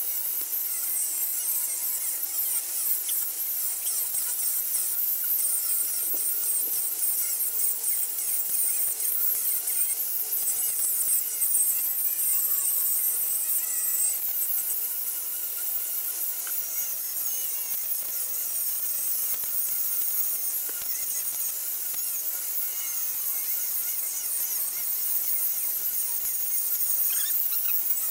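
Angle grinder grinding a steel railroad rail: a steady, high-pitched whine that wavers slightly as the disc bites into the metal.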